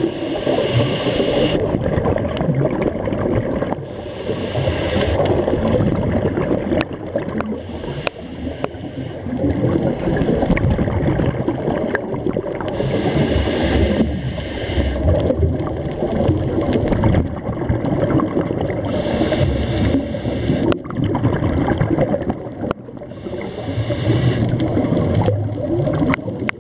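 Scuba regulator breathing heard underwater: a short hiss on each inhale about every five seconds, with a low bubbling rumble of exhaled air between them.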